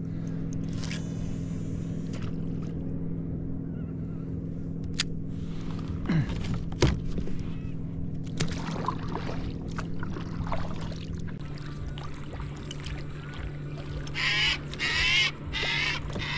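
A steady low drone that drops slightly in pitch about two-thirds of the way through, with a few sharp knocks in the middle. Near the end a bird gives a run of loud, harsh calls.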